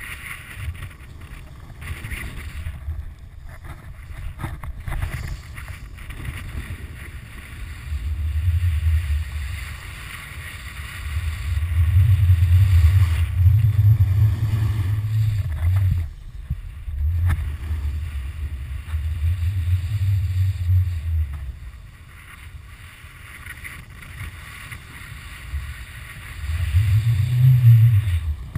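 Wind buffeting the microphone of a pole-held action camera on a moving snowboarder, a deep rumble that swells and fades several times, loudest a third of the way in and again near the end, over a steady hiss of the snowboard sliding on snow.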